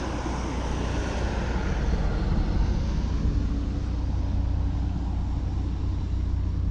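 Wind rumbling on the microphone over a steady low drone, with a faint steady hum that fades near the start and comes back about three seconds in.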